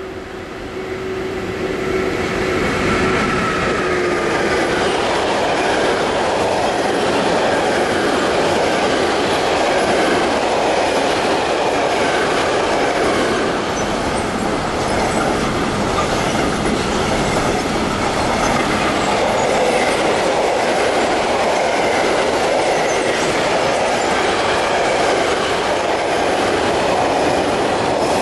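Electric locomotive with a long freight train of covered sliding-wall wagons passing close at speed. It builds up loud in the first two seconds, with a tone that drops in pitch about three to four seconds in as the locomotive goes by. After that comes a steady, loud rumble and rattle of the wagons' wheels on the track.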